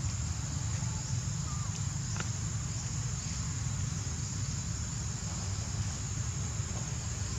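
Insects trilling steadily in one high-pitched tone, over a continuous low rumble.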